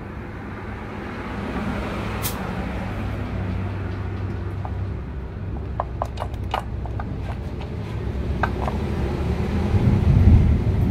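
Steady low rumble of motor vehicle engines running, growing louder near the end, with a few light clicks and clinks about six to nine seconds in.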